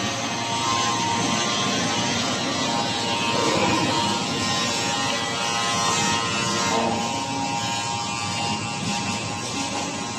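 Automatic dough sheeting line running: a steady mechanical whir from its motors, rollers and conveyor belt, with several held whining tones over it.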